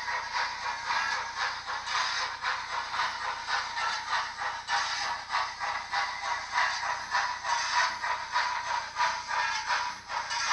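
DCC sound decoder in an OO gauge model of an LMS Princess pacific steam locomotive playing a rapid, even steam chuff as the model runs, mixed with the clatter of its wheels on the track. The sound is thin, with almost no bass.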